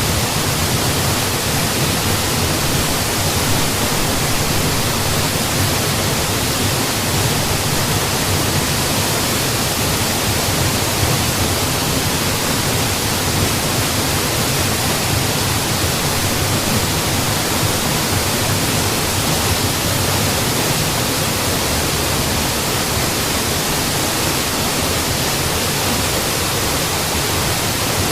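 Mountain waterfall: water falling and splashing in a steady, even rush of noise.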